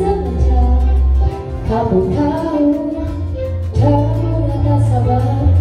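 Karaoke: a woman singing through a microphone over a pop backing track with long, heavy bass notes. The bass drops out for a couple of seconds in the middle.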